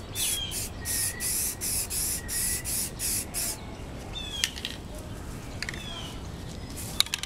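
Aerosol spray can of primer being sprayed in short, quick bursts, about three a second, stopping about three and a half seconds in. Afterwards a few bird chirps and a couple of sharp clicks from handling the can.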